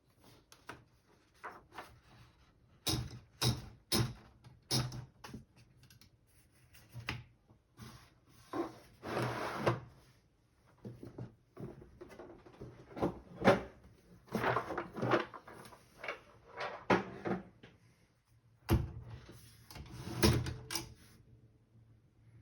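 Vintage 1970s Brother DeLuxe 220 typewriter being typed on: sharp key strikes in uneven bursts and pauses. There is a longer rasping stretch about nine seconds in.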